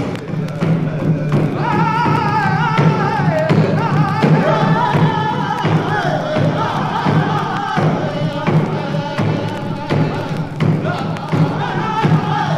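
Music with voices singing over a thudding drum beat.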